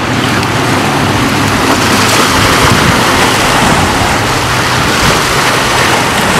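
Steady outdoor background noise: a broad, even rushing hiss with a faint low hum underneath, unchanging throughout.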